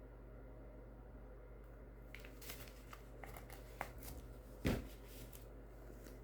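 Quiet handling noises as paint cups are picked up and poured: a few light clicks and crinkly rustles, with one sharper click about four and a half seconds in, over a steady low hum.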